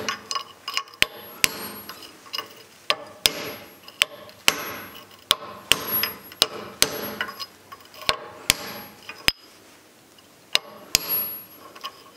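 Hammer striking a driver to knock the old outer bearing race out of a classic Mini's front hub upright: a string of sharp metal-on-metal blows, one or two a second, with a short pause about three-quarters of the way through. The race is already moving and nearly out of its bore.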